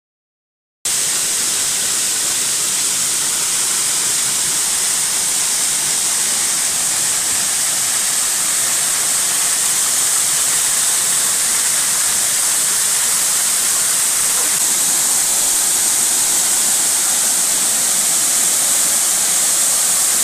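Waterfall pouring over a rock face: a steady, loud rushing hiss, brightest in the high range. It starts after a brief gap of silence right at the start.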